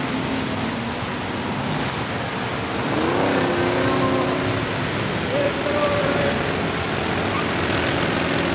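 Engines of several cars and pickup trucks racing together on a short oval, each towing a boat. They run steadily in a dense mix, with one engine revving up about three seconds in.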